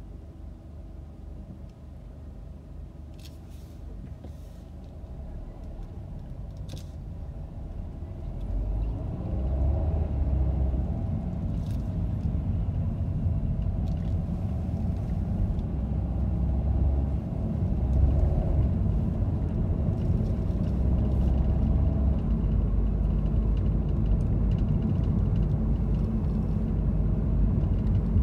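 A car's low rumble of engine and tyre noise, quiet while stopped and growing louder about a third of the way in as it pulls away and drives on.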